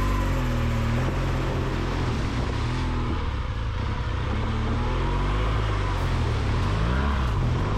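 Honda Africa Twin's parallel-twin engine running under changing throttle, its pitch rising and falling several times, while the motorcycle wades through muddy water with water and mud splashing around it.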